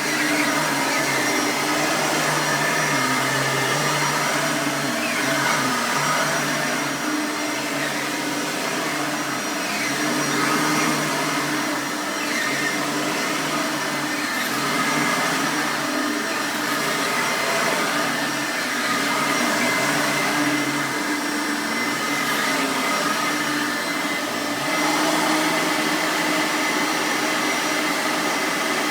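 Bissell 9 amp soft-bag upright vacuum cleaner running steadily on carpet, its motor whine holding an even pitch with slight rises and dips in loudness.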